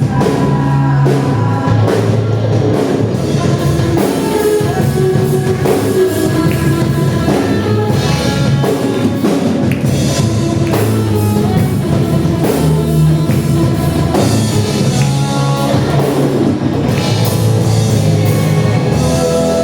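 A gospel worship song played by a band with a drum kit, with singing over it.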